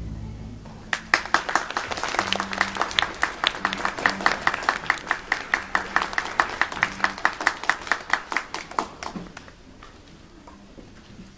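Applause with one person's close, evenly paced handclaps standing out, about five a second, dying away about nine seconds in.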